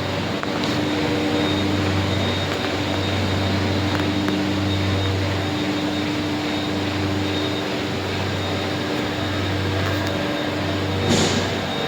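Brückner textile stenter running in a mill: a steady mechanical drone with a low hum that swells and fades every second or so, and a short hiss near the end.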